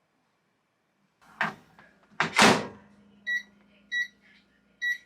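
Microwave oven door clicked and shut with a loud thud, then a steady low hum and three short beeps from the keypad as it is set.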